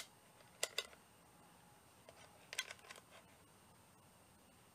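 Faint small clicks and taps as a capacitance meter and its test leads are handled against a compressor's start capacitor: one click at the start, a pair under a second in, and a short run of clicks about two and a half seconds in.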